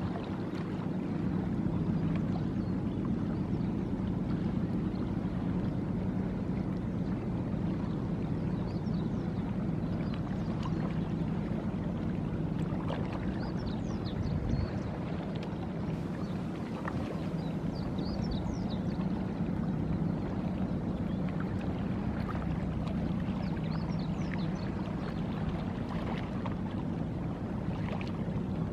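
Steady low drone of ship engines heard from across the water, with a few faint high chirps now and then.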